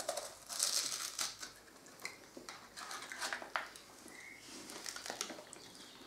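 Crunching bites into a wafer cone filled with aerated white chocolate, in short crisp bursts with a few sharp cracks, along with rustles of its plastic wrapper.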